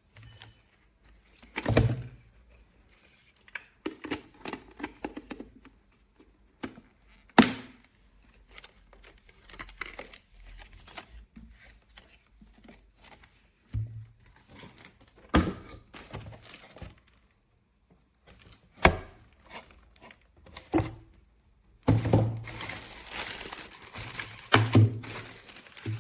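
Handling noise: scattered knocks, clicks and rustles, with a few sharp thuds and a busier stretch of clatter and rustling near the end.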